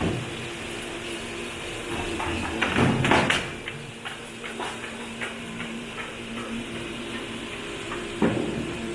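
Automated pallet sort and repair line running: a steady machine hum with scattered clacks and knocks. A louder clatter comes about three seconds in and another knock near the end.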